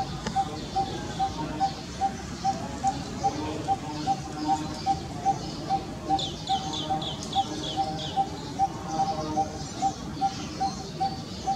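A bird calling one short, even-pitched note over and over, about two to three times a second. About six seconds in, a second bird gives a quick run of about eight high, falling chirps.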